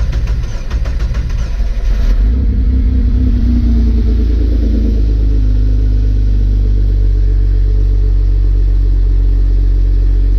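Jeep 4.0 inline-six cranked by the starter for about two seconds, then catching and running at a raised idle that rises and falls before settling to a steady, smooth idle. The catch sounds weird to the owner.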